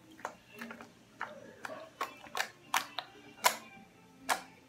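White slime being squeezed in the hands and pressed onto a hard floor, giving off sharp clicking pops from trapped air, irregularly about twice a second.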